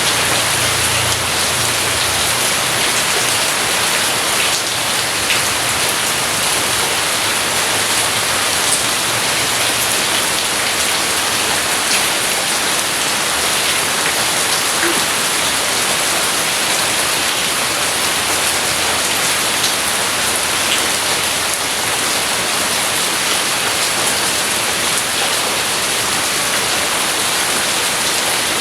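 Steady rain, an even hiss with scattered sharp drop ticks, and a faint low rumble in the first couple of seconds.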